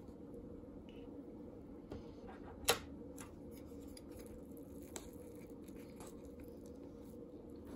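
Chopsticks stirring instant noodles in a cup: a sharp click a little under three seconds in, then a few soft knocks and wet squishes as the noodles are mixed, over a faint steady hum.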